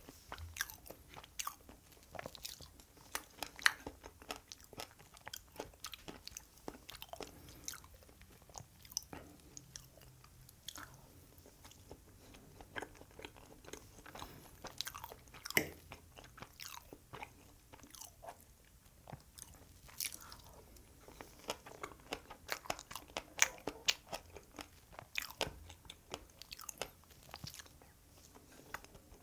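A person chewing mouthfuls of strawberry cream cake with a dense, brownie-like chocolate base, giving many irregular short wet clicks and smacks.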